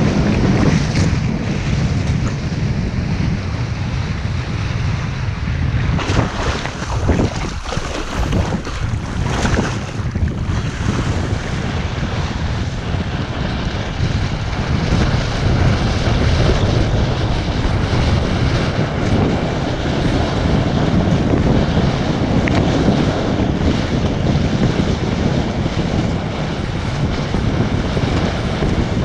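Strong wind buffeting the microphone as a kiteboard planes across the sea, with water rushing and splashing against the board. The rumble dips and surges between about six and eleven seconds in, then runs steadily.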